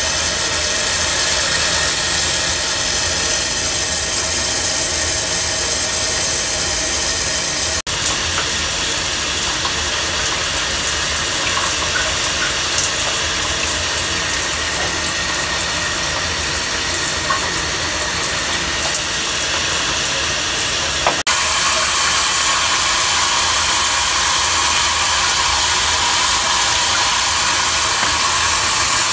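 Delta In2ition shower head spraying water onto a tiled wall: a steady hiss of running water. The sound breaks off and jumps abruptly about 8 seconds in and again about 21 seconds in, a little softer in between.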